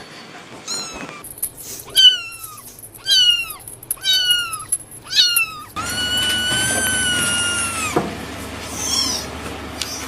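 Kittens meowing: about five short, high meows that each fall in pitch, then one long, level meow lasting about two seconds, and a fainter meow near the end.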